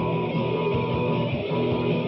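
Amateur rock band of electric guitar and bass guitar playing over a drum machine beat, a repeating riff with a steady rhythm.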